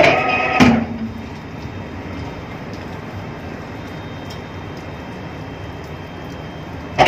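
Steady mechanical rumble of ship's deck machinery. It opens with a short, loud, high pitched squeal or call and a sharp metallic clank about half a second in, and another short pitched sound comes near the end.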